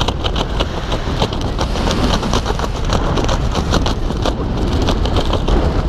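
Loud wind rush buffeting the microphone in high-speed flight, with rapid fluttering flaps of fabric in the airstream, several a second, easing off about four seconds in.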